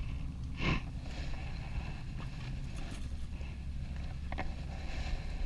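Steady low wind rumble on the microphone out on open water, with a short sharp sound about a second in and a fainter one past four seconds in.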